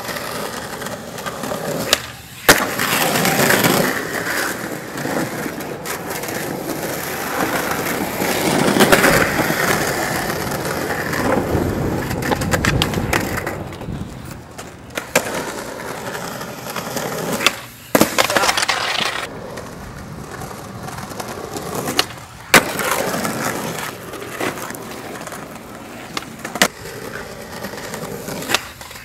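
Skateboard wheels rolling over rough asphalt in long runs, broken by a handful of sharp wooden clacks as the board's tail pops and the board slaps down on the pavement.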